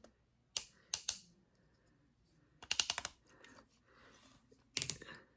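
Plastic clicking from the joints of a LEGO Brachiosaurus model as it is posed, in a few short clusters of rapid clicks.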